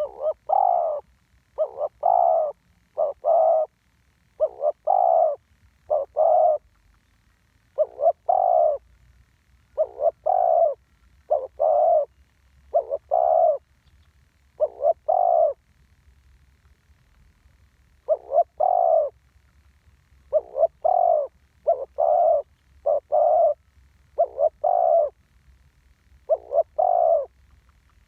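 Spotted dove cooing repeatedly, a string of short, low coos in quick groups, with a pause of about two seconds in the middle.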